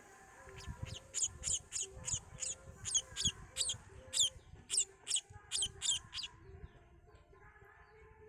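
A small bird chirping: a quick series of about fifteen short, high chirps, each sliding sharply downward in pitch, about three a second, stopping a little after six seconds in.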